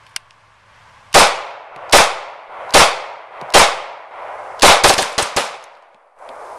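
Magnum Research MR9 Eagle 9mm pistol firing: four single shots about 0.8 s apart, then a quick string of about five shots, each with a short echo.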